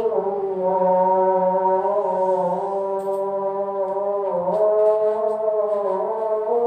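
A person's voice holding one long, unbroken note, its pitch dipping and then stepping up about four seconds in.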